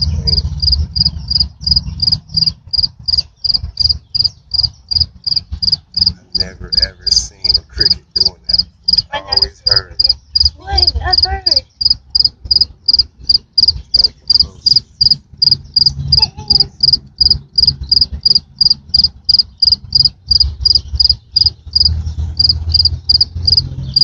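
Large cricket chirping up close, a loud, high-pitched, evenly paced chirp of about three a second, made by rubbing its wings together. It breaks off briefly near the end, then resumes.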